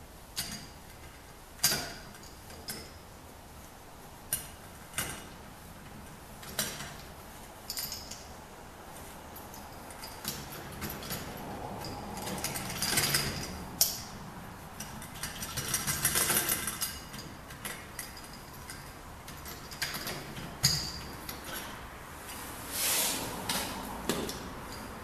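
Door knob and latch parts being handled and fitted into a door: scattered sharp metal clicks and knocks, with a few longer scraping stretches as the spindle is worked into the latch.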